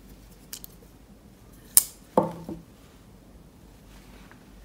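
Kizer Infinity prototype folding knife worked by hand: a few faint clicks, then one sharp metallic snap of the blade a little under two seconds in, followed by a duller knock.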